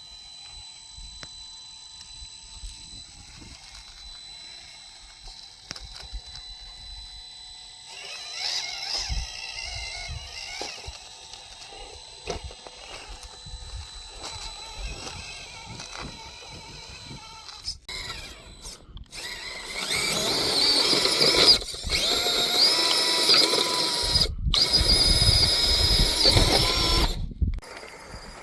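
Small electric motor and gearbox of an FCX24 K5 Blazer RC crawler whining as it crawls over rocks. The sound is faint at first, picks up about eight seconds in, and is loudest in throttle spurts over the last several seconds, with the pitch rising and falling and brief stops between spurts.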